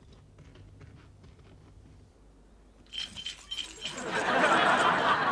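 A few quick sharp clinks, then a loud rattling crash that swells about a second later and is still fading at the end.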